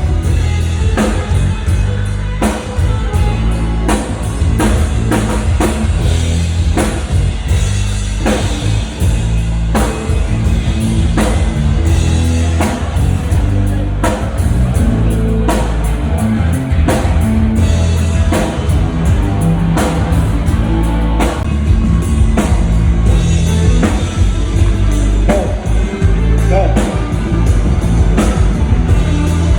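Rock band playing live through a PA system during a sound check: drum kit with steady regular hits, guitars and heavy bass.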